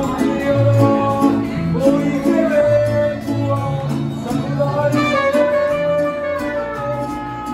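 A mariachi band playing live: a strummed vihuela and guitars keep a rhythm with a bass line under a gliding, sustained melody.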